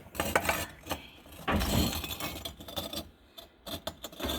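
Small fired ceramic pieces clinking and scraping against one another as handfuls are lifted out of the kiln and set down, in several short clattering knocks.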